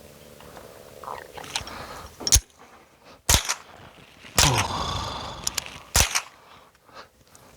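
Four gunshots, irregularly spaced about a second apart. The third is followed by a long ringing tail.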